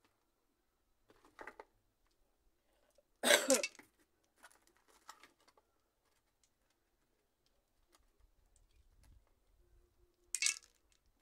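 A plastic plant pot being handled during repotting: a few short rattles and scrapes. The loudest comes about three seconds in and another near the end.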